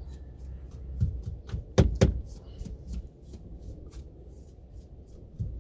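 Small brush flicked in quick strokes across a car's dashboard touchscreen, a run of short light brushing sounds, with two sharper clicks close together about two seconds in.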